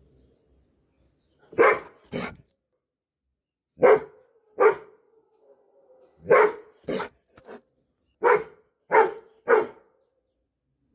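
Doberman pinscher barking: about nine loud, short barks, mostly in pairs and ending with three in quick succession.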